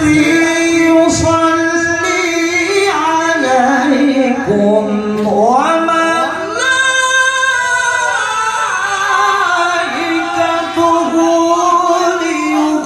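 A male qari reciting the Quran in the melodic tilawah style, in a high voice, through a microphone. He holds long notes with ornamented runs; the melody dips low about four seconds in, then climbs back up to a high held note.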